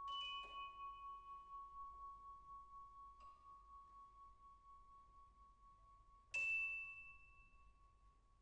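Quiet, sparse passage of contemporary orchestral music: a single high note is held throughout while a few bell-like struck notes ring out and fade. The loudest and brightest of them comes a little past six seconds in.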